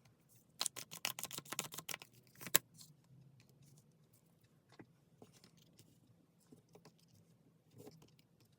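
Tarot cards being handled and shuffled: a quick run of crisp card clicks with one sharper snap near the end, then a few faint taps.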